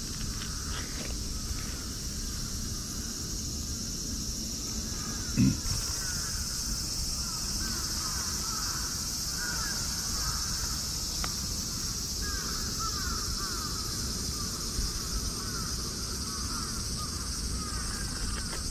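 Birds calling in clusters of short falling calls over a steady high hiss of insects, with one dull knock about five seconds in.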